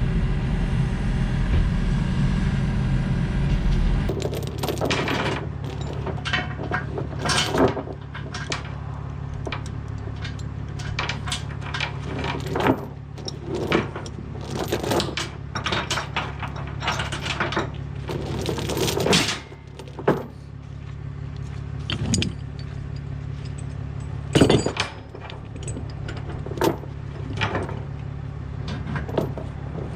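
A diesel engine running steadily, cut off about four seconds in. After that, a quieter idling hum stays under repeated, irregular metallic clanks and rattles from tie-down chains being handled to secure the machine on the trailer.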